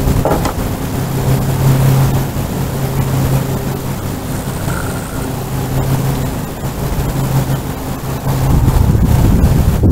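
A motor running steadily, a low even hum, with wind rumbling on the microphone; the hum weakens about two-thirds of the way through and the wind rises near the end.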